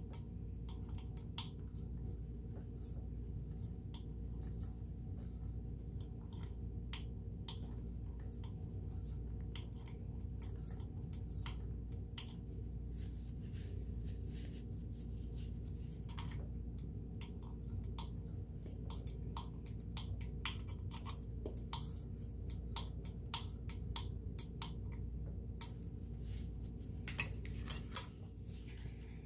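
Brush scrubbing old grease off the metal gears and cams inside a Kenmore 158.1336 sewing machine: irregular small clicks and scratches of bristles and handle on metal, over a steady low hum. A cloth wipes the parts near the end.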